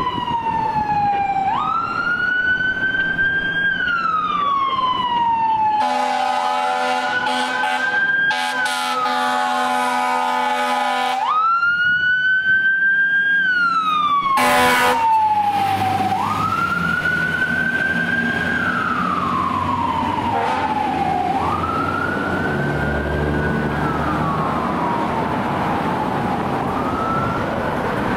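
2005 Seagrave Marauder II fire engine's siren wailing, its pitch rising quickly and falling slowly about every five seconds. Its air horn sounds in a long blast with a few short breaks about six seconds in, and once more briefly near fifteen seconds.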